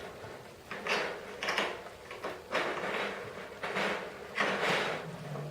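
Snare drum being worked on by hand during a head change: a series of short scraping, clattering sounds, about one every second.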